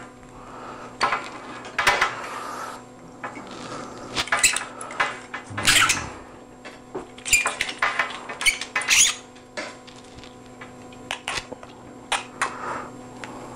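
Irregular clicks, knocks and rattles of a microphone boom arm, its cable and a spider shock mount being handled and fitted together, over a steady electrical hum.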